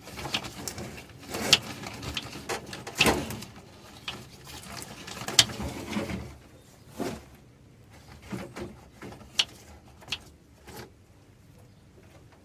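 Scattered sharp clicks and knocks at irregular times, busier in the first half and sparser later: things being handled by hand.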